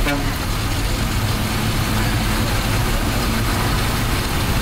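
Ashok Leyland diesel bus engine running steadily with a low hum, heard from inside the bus, with a short click right at the start.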